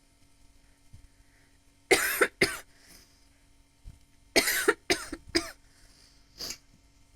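A woman coughing in two short fits while smoking, a smoker's cough brought on by the smoke: two coughs about two seconds in, then a run of four a couple of seconds later, the last one much fainter.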